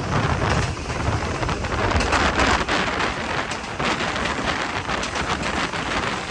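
Passenger train running at speed: a steady rushing noise of wheels on rails and wind with a low rumble, and faint clatter throughout.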